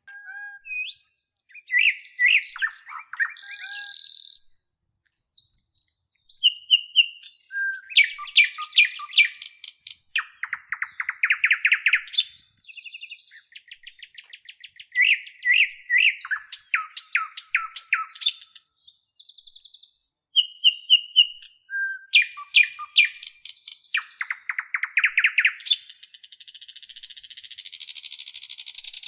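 A songbird singing a long, varied song of sharp chirps, rapid trills and buzzy rising phrases. The same run of phrases comes twice, about fourteen seconds apart. Near the end there is a few seconds of harsh hissing song.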